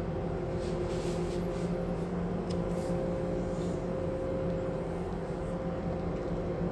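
Steady machinery hum that holds a low pitched tone without change, with a few faint light clicks from handling.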